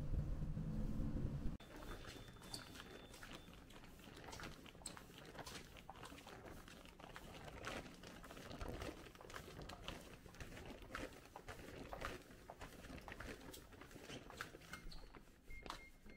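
Low rumble of a shuttle bus riding along, cutting off suddenly about a second and a half in. Then irregular footsteps and the rustling and clicking of carried shopping bags on a hard corridor floor.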